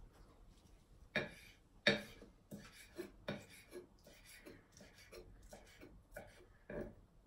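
Knife chopping fresh coriander on a chopping board: a run of irregular knife strikes, about one every half second, the two loudest about a second and two seconds in.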